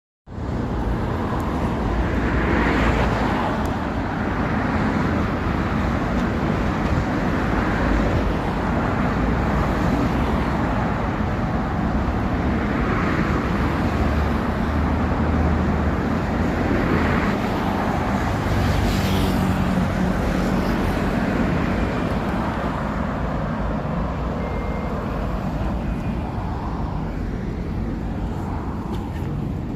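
City street traffic: a steady wash of road noise with vehicles passing one after another, each swelling and fading over a few seconds.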